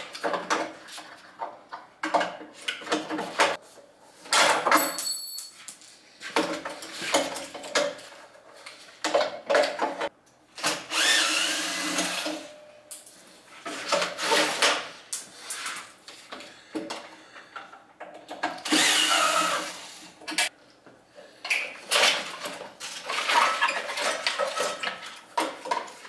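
Cordless drill-driver running in several short bursts, backing out the screws that hold the cool box's compressor-unit housing, with clatter of sheet-metal parts being handled between the bursts.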